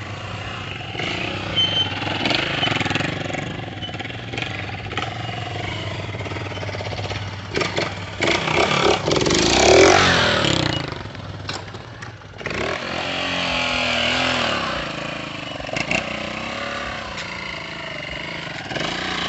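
Small street motorcycle's engine revving while the bike is held up on its rear wheel in a wheelie, the pitch rising and falling with the throttle. It is loudest and roughest about ten seconds in, drops away briefly near twelve seconds, then climbs and wavers again.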